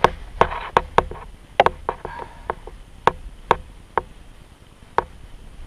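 A quick, irregular run of sharp knocks and clicks, about a dozen in the first four seconds and one more near the end.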